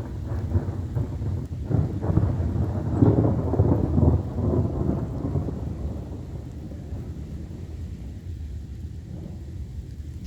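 Thunder rumbling, swelling to its loudest a few seconds in and then fading away.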